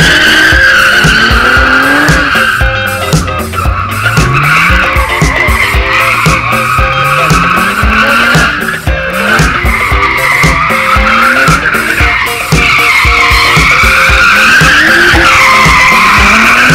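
Car tyres squealing through a sustained drift while the engine revs up again and again, rising every couple of seconds, over background music with a steady beat.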